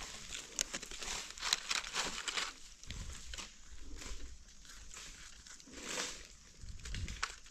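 Dry leaf litter crackling and rustling in irregular bursts as gloved hands scrape and cut into the soil with a small knife, digging out a young mushroom button.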